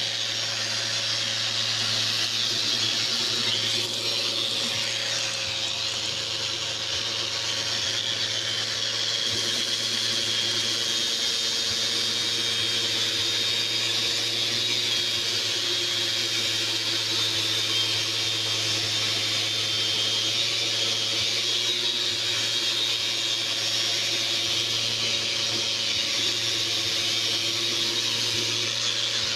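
Festool electric sander running steadily against painted wood, stripping old paint, with a steady hum and a high whine, and a dust-extraction vacuum drawing through the sanding pad.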